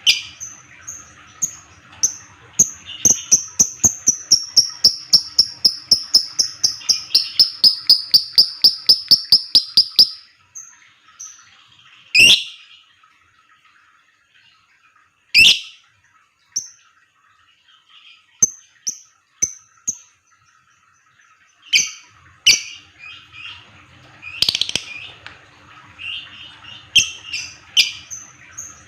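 Lovebird calling: a fast, even run of sharp high chirps, about four a second, that slowly falls in pitch for some eight seconds. This is the rapid typing-like 'ngetik' call. It is followed by a few loud single shrieks and scattered chirps.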